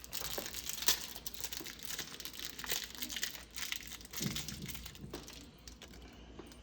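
Crinkling and rustling of packaging, with irregular light clicks of small lock hardware being handled, as a new door knob set is unpacked.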